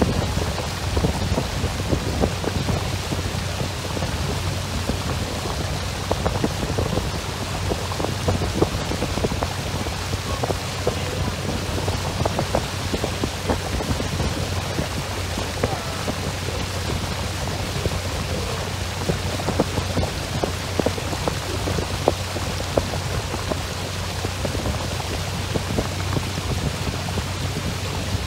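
Wind rumbling and crackling on the microphone over the steady low hum of a boat's motor as the boat moves across open water.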